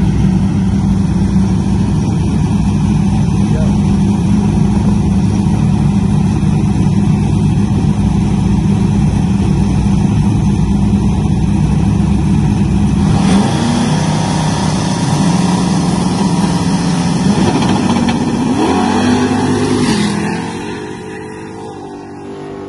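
Two drag-racing cars' engines running loud and steady at the starting line, then launching a little past halfway, their engine notes climbing as they accelerate away, and fading near the end as they head down the track.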